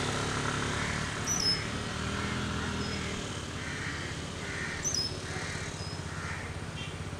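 Motor scooter engine running and fading as it pulls away, while a crow caws repeatedly and a small bird gives a few short high chirps.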